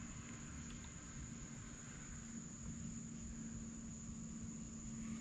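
Crickets chirping steadily in a high, even drone, over a faint, low, steady hum.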